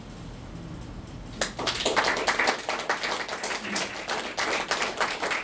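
Audience clapping, starting suddenly about a second and a half in after a short quiet pause and continuing as a dense patter of claps.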